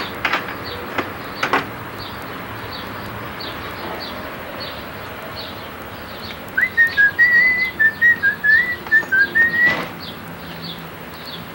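A person whistling a short tune of quick notes that step up and down, lasting about three seconds and starting a little past halfway through.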